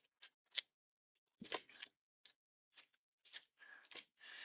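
Laminated cheat sheets being handled and laid down: a series of short, sharp rustles and clacks, the loudest about one and a half seconds in.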